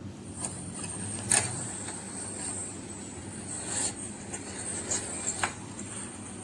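A handful of sharp clicks and knocks, the loudest about a second in, over a steady high-pitched whine and a low background rumble. No horn sounds.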